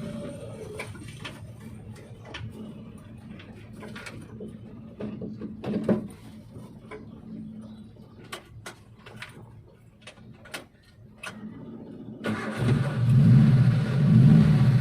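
Suzuki Espass van engine off for most of the stretch, with scattered clicks and knocks, then starting about twelve seconds in and running steadily after the engine had died.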